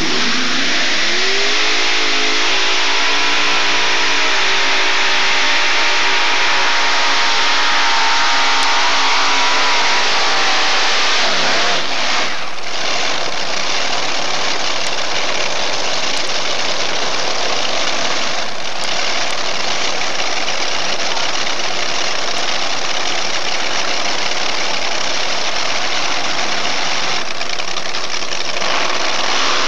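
Multi-engine unlimited modified pulling tractor with supercharged engines making a pull. The engines climb sharply in pitch as it launches off the line, then run flat out, loud and steady, with the note sagging about ten seconds in.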